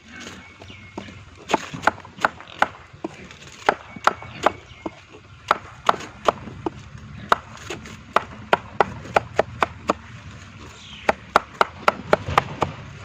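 A series of sharp knocks or chops, about two or three a second in irregular runs with short pauses, starting about a second and a half in.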